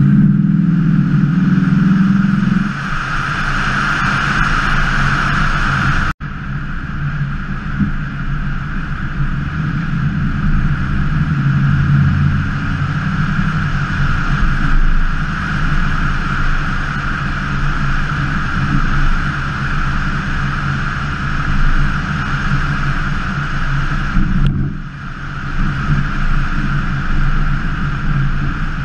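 1968 Pontiac LeMans engine running as the car cruises, heard over its hood along with steady wind and road noise. The engine is louder for the first couple of seconds, then settles, and eases off briefly about 25 seconds in.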